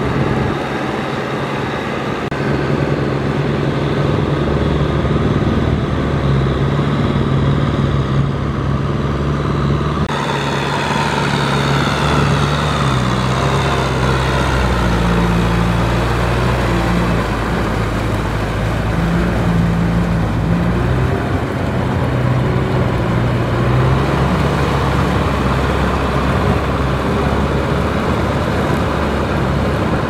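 Kubota tractor's diesel engine running steadily under load while its rear rotary tiller churns through flooded rice-paddy mud, with water splashing. The engine note changes abruptly about ten seconds in, and its pitch wavers a little after that.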